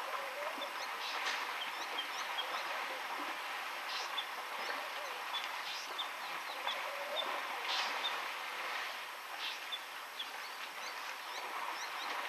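Outdoor bush ambience: many short, high chirps from small birds over a steady hiss, with a few brief rustling noises.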